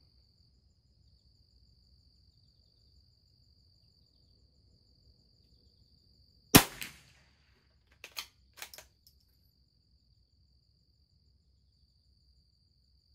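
A single .22 LR rifle shot from a Christensen Arms Ranger bolt-action rimfire about six and a half seconds in. About a second and a half later come four quick clicks as the bolt is worked to eject the case and chamber the next round.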